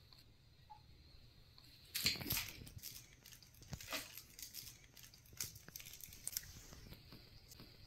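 Maine Coon kittens biting and tugging at a dried chew strip: crisp crackling and crunching in short scattered bursts, the loudest about two seconds in.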